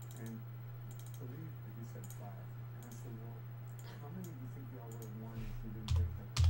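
Scattered, irregular clicks from a computer mouse and keyboard over a steady electrical hum, with two heavy low thumps near the end.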